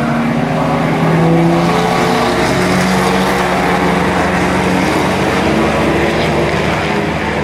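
A group of pre-war sports racing cars, vintage Bentleys among them, runs hard past through a bend. Several engine notes overlap and slide in pitch. They are loudest about a second in, then give way to a single car's engine approaching.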